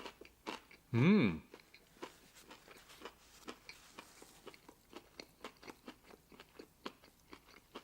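A person chewing a mouthful of food, a steady run of soft clicking chews about three to four a second, with a short hummed 'mm' about a second in.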